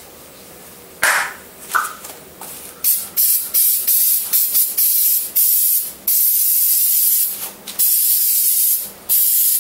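Aerosol caliper cleaner sprayed onto a bare brake caliper in a run of hissing bursts, starting about a second in, short and quick at first, then longer sprays of about a second each near the end.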